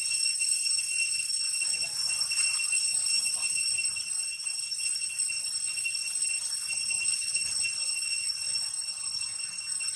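Insects in the surrounding vegetation droning with a steady high-pitched whine made of several even tones.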